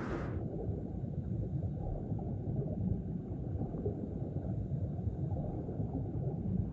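Steady low rumbling drone with no clear pitch. A hissing sound turns suddenly muffled just after the start, as if the high end were cut away, and the low rumble carries on.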